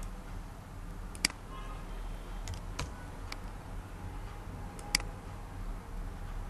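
Computer mouse clicking: two sharp clicks, about a second in and near five seconds, with a few fainter clicks between, over a steady low hum.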